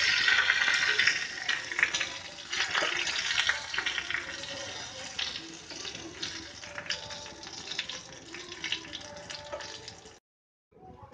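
Dry red chillies sizzling in hot oil in a small tadka pan. A loud hiss dies down over several seconds into scattered crackles and pops as a spoon stirs them, and the sound cuts off suddenly near the end.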